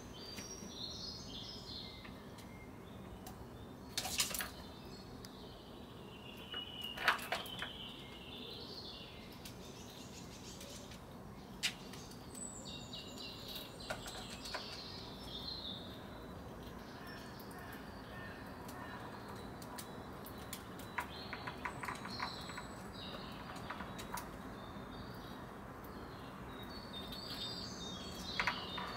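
Small songbirds chirping and singing in the background over a faint steady outdoor hum. Scattered light knocks and clicks, the loudest about four and seven seconds in and again near the end, come from a red squirrel clambering on a wooden nut feeder and handling a walnut.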